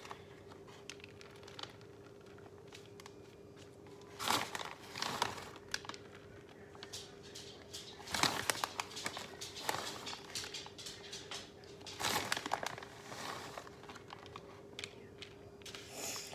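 Plastic bag of shredded cheese crinkling in several short bursts a few seconds apart as cheese is taken out and spread onto a tortilla, over a faint steady hum.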